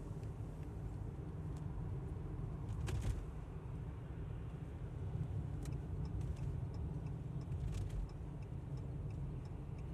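Steady low rumble of a car driving on a slushy, snow-covered highway, heard from inside the cabin, with a sharp click about three seconds in.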